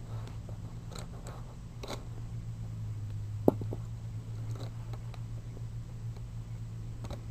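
Plastic clicks of a K'nex catapult's arm and trigger being worked by hand, with one sharp snap about three and a half seconds in. A steady low hum runs underneath.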